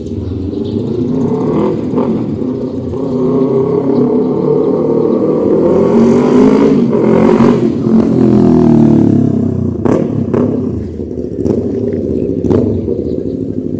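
Yamaha MT-03 motorcycle engine running through an SC Project full exhaust, rising in revs to its loudest in the middle, then falling away. A few sharp cracks follow.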